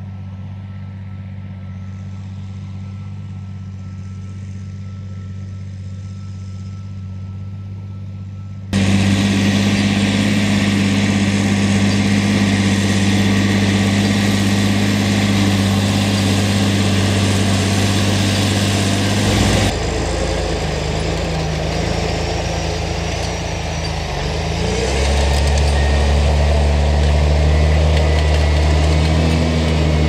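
John Deere tractor's diesel engine running steadily under load while pulling a five-furrow reversible plough through the soil. It is quieter at first and louder from about nine seconds in. Near the end the engine note dips and then climbs again.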